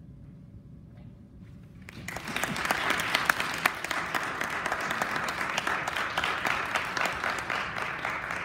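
A small audience applauding. The clapping starts suddenly about two seconds in, after low room tone, and keeps going at an even level.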